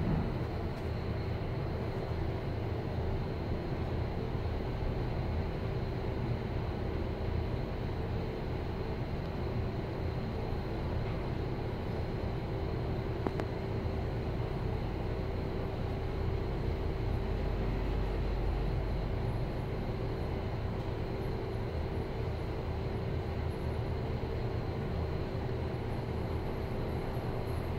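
Former GoldStar passenger elevator travelling down several floors, heard from inside the car: a steady low rumble of the ride with a constant hum tone.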